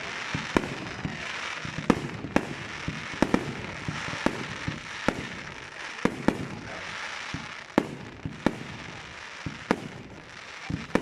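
Fireworks going off at a display: an irregular run of sharp bangs, about one or two a second, from bursting shells, over a continuous crackling hiss between them.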